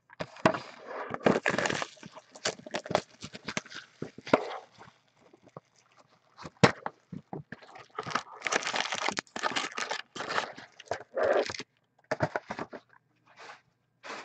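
Rustling, tearing and crinkling as a sealed hockey card box is opened and its packs are taken out and stacked, with scattered clicks and taps and one sharp snap about halfway through.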